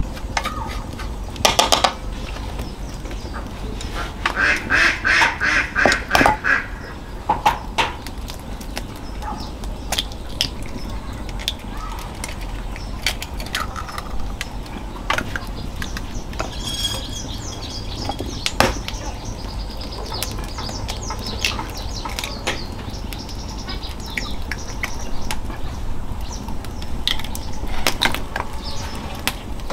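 Domestic ducks quacking, with a quick run of calls about four to six seconds in, among scattered knocks and clicks.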